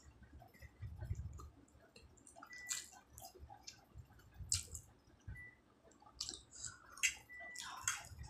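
Close-up wet slurping and chewing of a mouthful of Maggi instant noodles, in irregular moist smacks and sucks, with a few light clinks of a metal fork against a ceramic plate.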